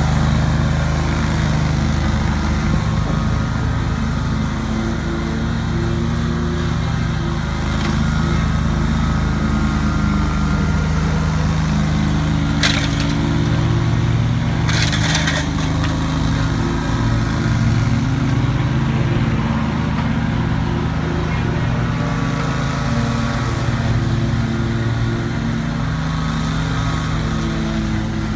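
2003 Great Dane 52-inch stand-on mower's engine running steadily at working speed with the blades cutting tall grass, under load. Two brief sharp cracks sound about halfway through.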